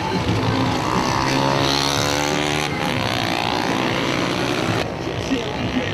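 Motorcycle engine revving hard, its pitch climbing and falling several times.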